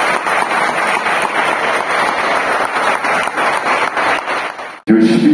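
Church congregation applauding, a steady round of clapping that thins near the end and then cuts off abruptly, followed by a man speaking over a microphone.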